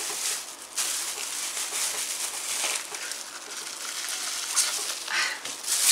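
Thin plastic bag of berries crinkling as the air is sucked out of it by mouth to flatten it for freezing: a long continuous hiss and rustle.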